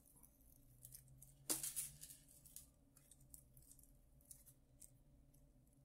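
Faint small metallic clicks and rustles of a gold-coloured chain bracelet being handled, with one louder rustle about a second and a half in. Under them runs the faint steady hum of a home mechanical ventilation system.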